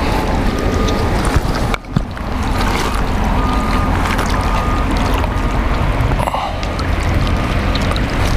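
Steady rushing roar of high water pouring through a nearly wide-open dam, with wind buffeting the microphone. The noise drops briefly about two seconds in.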